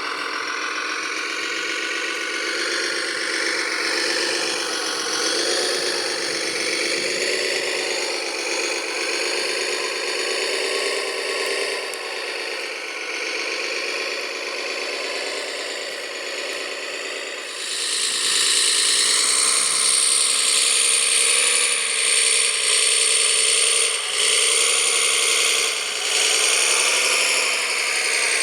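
Radio-controlled model construction machines running, with a steady mechanical whirring and rattling. The sound grows louder and brighter about two-thirds of the way through, as if a machine works harder.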